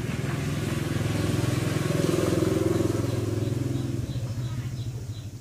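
A passing motor vehicle's engine running, growing louder to a peak about halfway through and fading away near the end.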